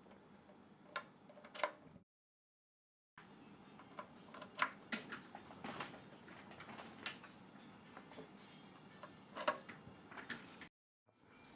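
Faint, scattered clicks and light knocks at irregular times over low room noise, cut twice by a stretch of dead silence: about a second long just after two seconds in, and briefly near the end.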